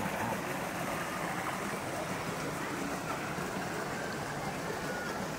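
Steady outdoor background noise, an even hiss with no single clear event and no bird calls standing out.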